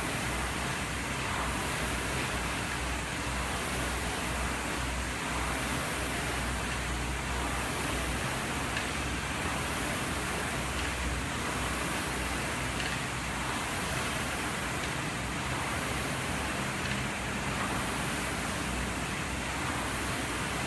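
Air rowing machine's fan flywheel whooshing under hard rowing, a steady rush that swells with each stroke about every two seconds.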